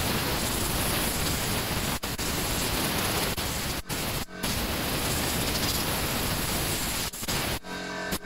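Compressed-air blow gun blasting dirt and sawdust out of a chainsaw's clutch and sprocket area: a loud, steady hiss that cuts off briefly four or five times as the trigger is let go.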